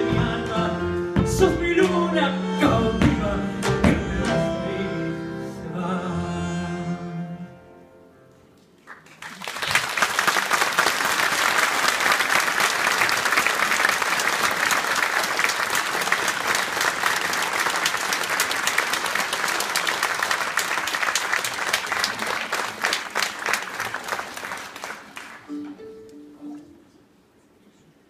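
A live ensemble of bandoneon, piano, double bass and violin plays the closing bars of an Argentine folk dance song, stopping about seven seconds in. After a brief pause an audience applauds for about fifteen seconds, then the clapping fades out.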